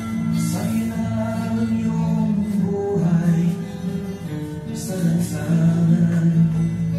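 Background music: a song with a singing voice over held instrumental notes.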